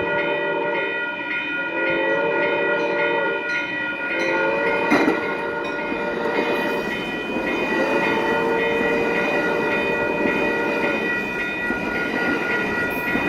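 Amtrak passenger train passing, its horn sounding in several long blasts over the rumble of the cars, with steady high-pitched tones throughout.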